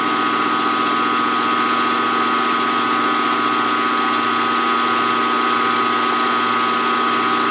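Small stepper-driven CNC milling machine running steadily, its end mill cutting a small part as the table feeds, with a steady whine.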